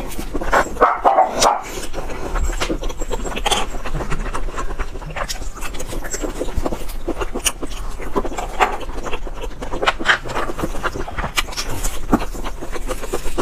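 Close-miked chewing and lip-smacking of a mouthful of food, a continual run of wet clicks and smacks.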